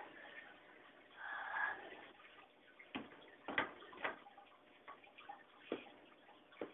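Wooden bed slats knocking against the bed frame as they are laid into place: a brief scrape of wood about a second in, then a handful of sharp knocks at uneven spacing.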